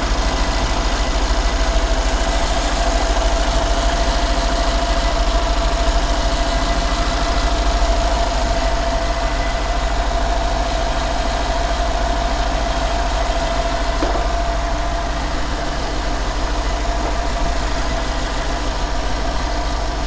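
Mercedes-AMG E63's M157 twin-turbo V8 idling steadily, with a steady whine over the engine note, during a leak check after a coolant repair.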